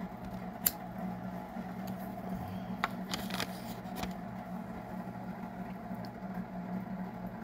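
Steady low hum in the room, with a few sharp clicks and taps as small craft pieces, a card of jump rings and pliers are handled on the table. The loudest click comes about a second in, and there is a quick cluster of them around three seconds in.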